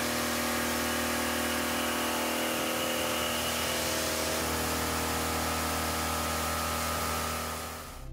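Indexable-insert end mill cutting carbon steel on a milling machine: a steady machining noise with a constant hum and whine, fading out near the end.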